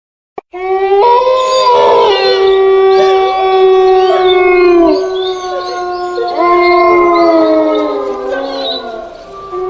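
A horror ringtone of canine howling: several long howls overlap, held steady after rising in pitch at the start, then falling away. A second set of howls rises about six and a half seconds in. A short click comes just before the howling starts.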